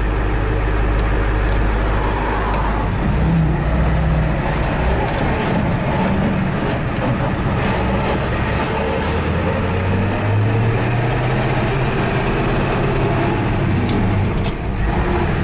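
Engine and road noise heard from inside a moving vehicle's cab: a steady low rumble, with the engine note shifting in pitch.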